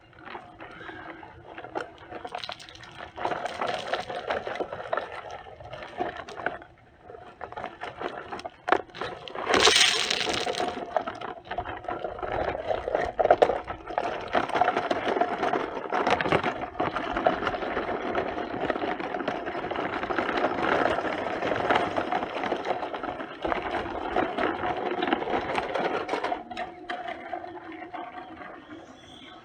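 Small electric motors of remote-control toy construction vehicles whining steadily, with scraping and rattling, and a short louder burst about ten seconds in.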